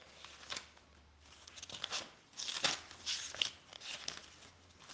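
Paper rustling in short, irregular swishes as the pages of a Bible are leafed through to find a passage.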